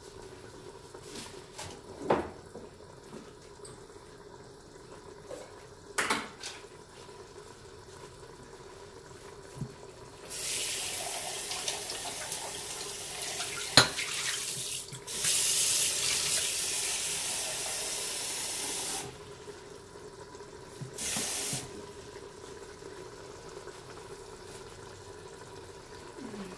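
Kitchen tap running into a sink in three spells, starting about ten seconds in, over a steady low hum. A few sharp knocks fall between and during them, the loudest about halfway through.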